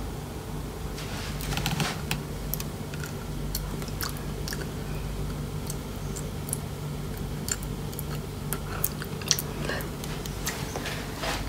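Biting and chewing on a cooked chicken foot: scattered small clicks and crunches of teeth working on the skin and bones, over a steady low hum.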